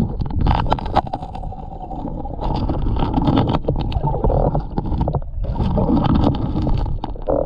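Gloved hand digging through creek-bed gravel, heard underwater: stones clicking and knocking together over churning water.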